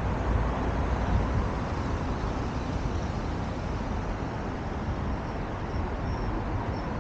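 Steady road traffic noise with a low rumble and no distinct events; a few faint, short high peeps sound in the second half.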